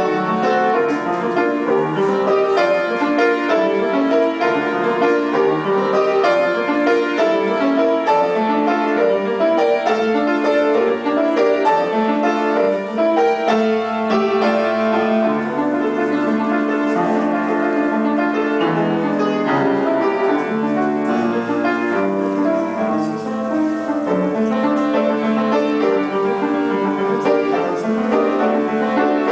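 Piano playing a lyrical classical-style piece, a melody over held chords, steady throughout.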